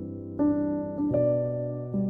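Slow instrumental keyboard music: sustained piano-like chords, with new notes struck twice and each fading slowly.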